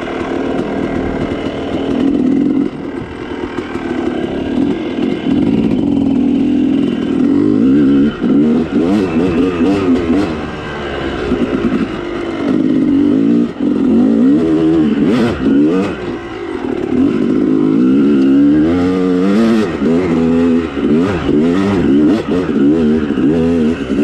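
Dirt bike engine revving up and down as it is ridden along a trail, with scattered knocks and clatter.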